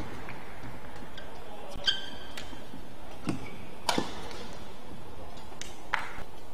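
Badminton rackets striking a shuttlecock in a doubles rally: a string of sharp hits a second or two apart, the loudest about four seconds in. Court shoes squeak on the mat about two seconds in.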